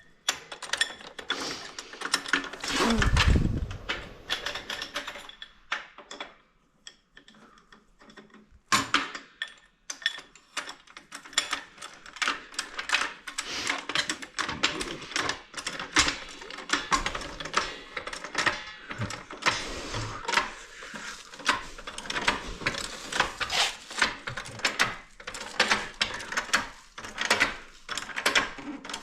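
Hand tools working on metal: a long run of quick, irregular metallic clicks and rattles, with a heavy thump about three seconds in.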